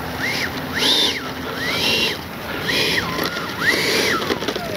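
Freewing Mirage 2000 V2's 80 mm, 12-blade electric ducted fan being blipped while the jet taxis, giving a run of short whines that rise and fall in pitch. Near the end the throttle is cut and the fan starts to spool down in a long falling whine.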